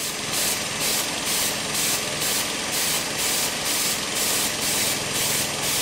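Aerosol spray hissing in quick pulses, about three a second, into the intake of a running 1.2 L three-cylinder engine with the engine faintly audible beneath. The added fuel is forcing the engine rich to test whether the downstream O2 sensor responds.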